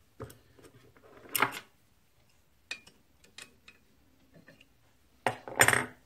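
Small metal parts of a flywheel-mounted throttle governor being handled and fitted with shims: scattered clicks and clinks, one with a brief ring. Two louder rattling knocks come about a second and a half in and near the end.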